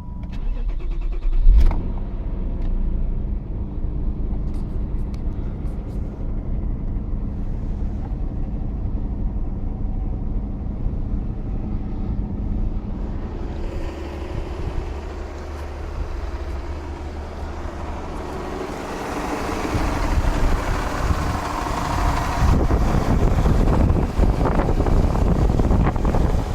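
A 1994 Ford Probe GT's 2.5-litre V6 starts about a second and a half in, then runs with a knock when cold that is caused by a worn timing belt tensioner. The sound gets louder and brighter about two-thirds of the way through.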